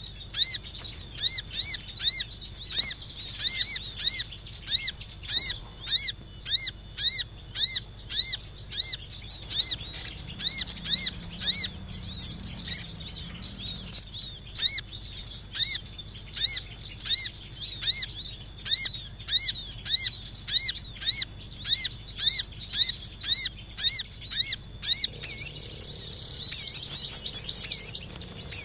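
Recorded lure call of a small songbird: a high, arched chirp repeated steadily about twice a second. The notes turn denser and louder near the end.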